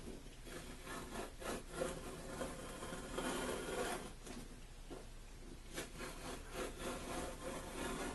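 Utility knife scoring the back of a sheet of tileboard hardboard: a run of irregular rasping strokes, densest about three to four seconds in.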